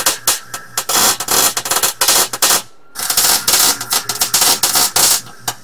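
110-volt hobby MIG welder's arc crackling and spattering as a weld is laid on steel, in two runs with a short break between them about two and a half seconds in. The welder puts the poor, sputtering welds down to running low on shielding gas.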